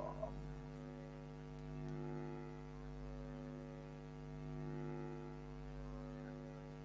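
Steady electrical hum made of several even, buzzing tones that slowly swell and fade a little: mains hum picked up in the recording.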